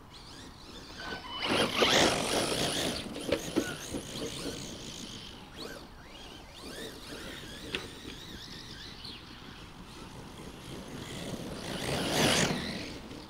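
Brushless electric 1/10-scale RC monster truck driving over grass, its motor whining as it speeds up and slows down. It passes loudest about two seconds in and again near the end, when it runs close by.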